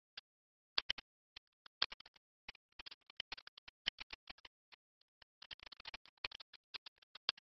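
Irregular, quiet clicks of a computer mouse working a painting program, coming in scattered single and double clicks with a quick run of clicks about five to six seconds in.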